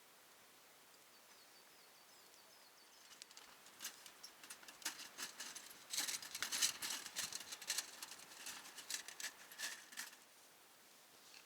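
Dry twigs crackling and snapping in a run of irregular sharp pops that builds about three seconds in, is densest midway and dies away about a second before the end. A faint high bird trill comes before it.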